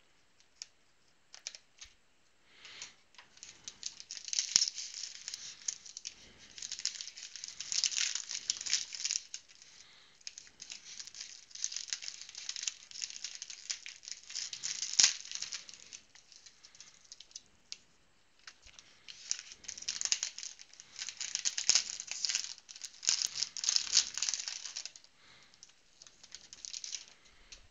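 Plastic and foil trading-card pack wrappers crinkling and tearing as a card rack pack is opened and handled. The rustling comes in two long stretches with sharp crackles and a short lull just past the middle.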